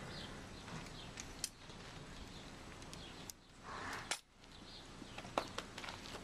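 Light clicks and clinks of a horse's halter and lead-rope hardware being handled: a handful of sharp ticks spread out, with a brief rustle a little before four seconds in.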